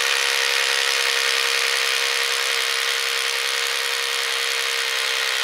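Electric drill running at a steady speed, its bit boring a hole into a wall.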